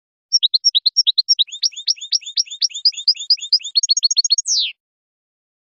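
European goldfinch singing: a fast, unbroken run of short, high twittering notes lasting about four seconds, ending in one longer note that slurs downward.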